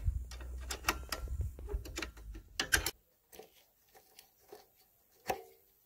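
Small metallic clicks and taps from a spanner and fingers working the drum-brake adjusters on a Minsk motorcycle's wheels, the brakes being adjusted. A low rumble lies under the clicks for the first three seconds, then only a few scattered clicks remain, the sharpest near the end.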